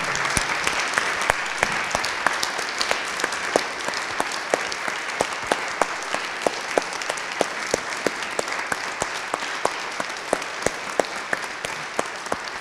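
Audience applauding: a dense patter of many people clapping, with single sharp claps standing out, dying down near the end.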